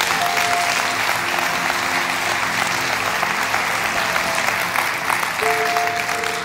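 A church congregation applauding steadily, with soft background music underneath.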